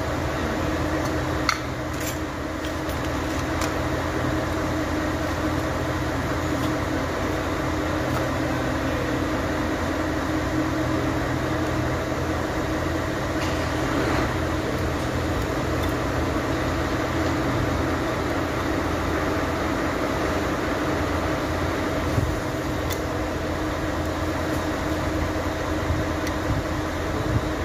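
Steady low machine hum, with a few light clicks of brake pads being handled in a cardboard box.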